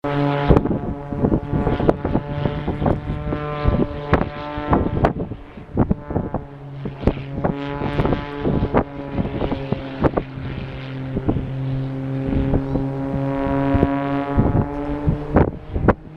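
A propeller aircraft's engine droning steadily, its pitch shifting slightly in the last few seconds, with heavy wind buffeting the microphone.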